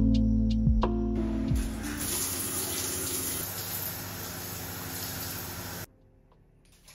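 Background music with plucked guitar notes fades out over the first second and a half as a shower runs, a steady spray of water that cuts off suddenly almost six seconds in.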